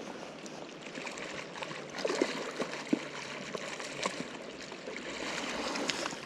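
Mountain river water flowing, a steady rush, with a few brief ticks a couple of seconds in.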